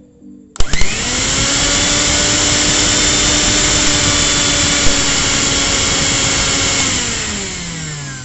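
Electric mixer grinder with a stainless steel jar switched on, blending banana, dates and milk into a shake with a loud, steady motor whine. About seven seconds in it is switched off and the motor spins down, its pitch falling.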